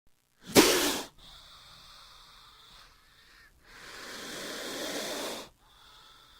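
King cobra hissing: a short, sharp, loud hiss about half a second in, then a longer hiss that builds over nearly two seconds and cuts off.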